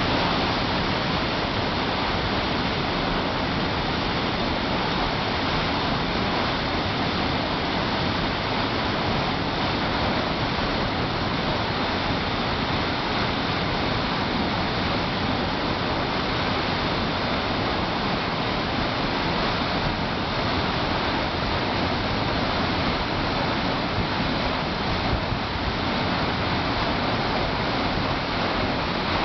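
Waterfall: falling water with a steady, even rush that holds at the same level throughout.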